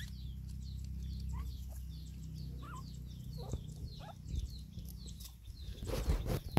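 Small birds chirping, short high chirps repeating about three times a second, with a few lower squeaks between them. A steady low hum runs underneath. A cluster of sharp crackles and rustles comes about six seconds in.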